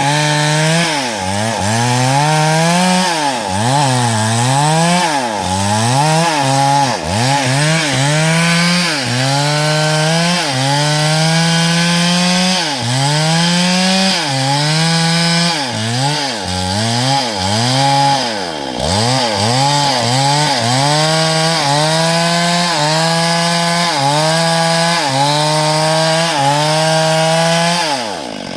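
STIHL MS382 two-stroke chainsaw cutting through hardwood under throttle. Its engine pitch dips again and again as the chain bites into the wood and then recovers. The throttle is released near the end and the pitch falls away.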